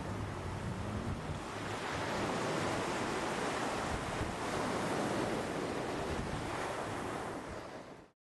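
Sea waves breaking on a beach: an even rush of surf that swells and ebbs, then fades out near the end.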